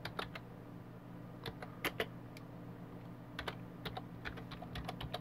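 Computer keyboard typing: a few runs of quick keystrokes with short pauses between, over a low steady hum.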